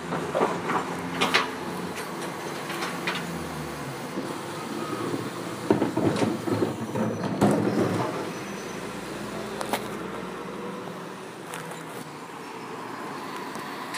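Refuse lorry engine running steadily, with repeated knocks and clatters of bins being handled. There is a dense run of them about six to eight seconds in.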